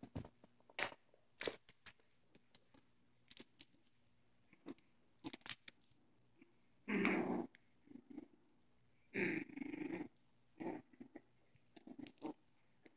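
Two puppies playing tug-of-war with a cloth rope toy, growling in two short bursts about halfway through, among scattered light scuffs and taps from their play.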